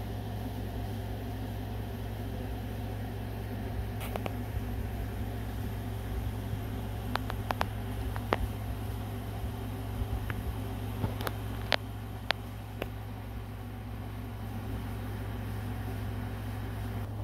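Steady low background hum, with a handful of faint, sharp clicks and ticks scattered through it.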